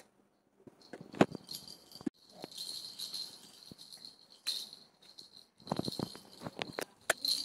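Plastic baby rattle toy with coloured rattle balls being grabbed and shaken, jingling on and off, with several sharp knocks as it is handled and bumped, the loudest about a second in and a cluster near six seconds.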